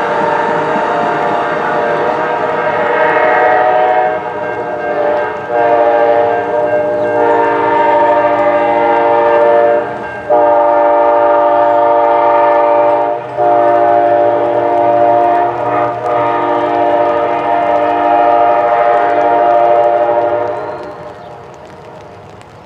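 Amtrak passenger train's multi-chime air horn sounding a run of long blasts broken by a few short gaps, fading out near the end.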